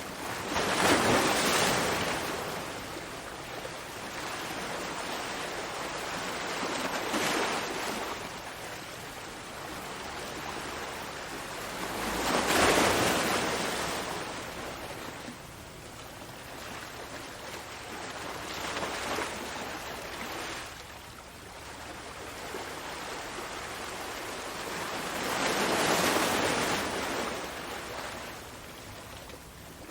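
Ocean waves breaking and washing onto shore, a steady hiss of surf that swells with a big wave about every 12 seconds and smaller ones between.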